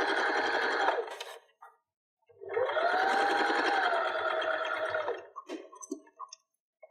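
Electric domestic sewing machine stitching through two layers of cotton fabric in two runs: it runs for about a second and stops, then starts again about two and a half seconds in, its motor whine rising as it speeds up and falling as it slows, for about three seconds. A few light clicks near the end.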